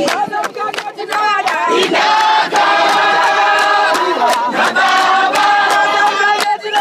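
A crowd singing together in chorus, with hand-clapping throughout.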